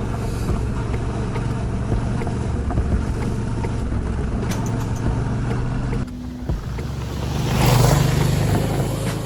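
Motorcycle engine running steadily under way, with a broad rush of wind noise. The sound changes abruptly about six seconds in, and the wind rush swells briefly near the end.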